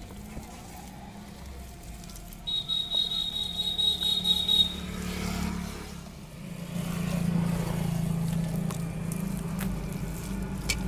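A motor vehicle's engine running steadily, growing louder in the second half as if passing close. A high-pitched steady tone, like a horn or alarm, sounds for about two seconds a few seconds in.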